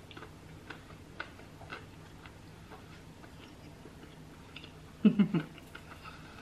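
Faint, regular ticking about twice a second, then a short, loud voiced hum about five seconds in.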